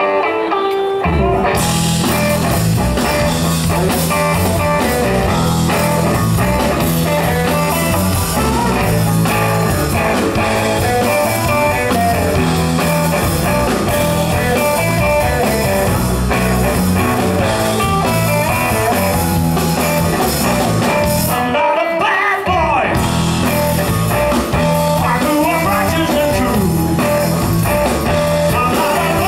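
Live blues-rock band playing: electric guitars, bass guitar and drum kit. About three-quarters of the way through, the bass and drums stop briefly while the guitar carries on, then the band comes back in.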